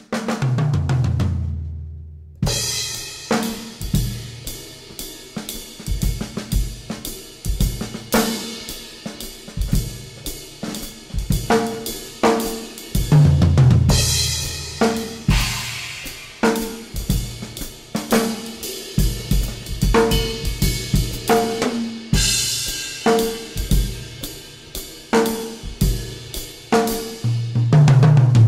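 Instrumental music led by a drum kit playing a steady groove of snare, bass drum, hi-hat and cymbals. Low notes step downward at the start before the drums come in about two seconds in, and such low notes return about halfway and near the end.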